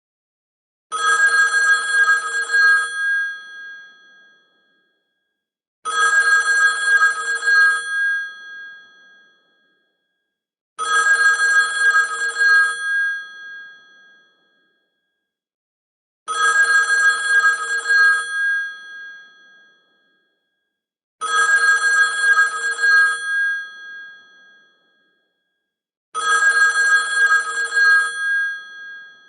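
Old-fashioned telephone bell ringtone: a rapid trill of bell strikes for about two seconds that then rings away, repeated six times about five seconds apart.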